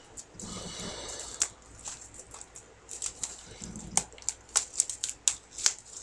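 Plastic shrink wrap on a DVD box set being picked at and peeled, giving irregular sharp crackles and clicks that come thicker in the second half.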